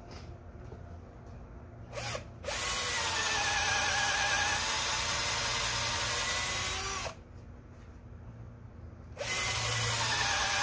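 Bosch 18-volt cordless drill boring into a wet spruce post with a well-worn bit. A short blip about two seconds in, then a run of about four and a half seconds with the motor pitch sagging under load and recovering, a pause of about two seconds, and a second run starting near the end.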